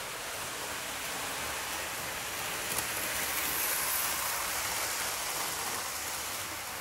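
Hornby 00-scale Inter-City 125 model train running on the layout's track: a steady rushing noise of wheels and motor. It grows louder about three seconds in as the coaches pass close by, then eases off.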